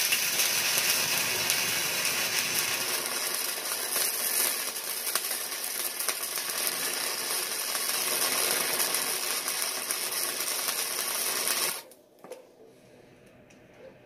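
Electric welding arc from a Miller Multimatic 200 welder, crackling and hissing steadily as a bead is laid on steel angle iron, then cutting off suddenly about twelve seconds in.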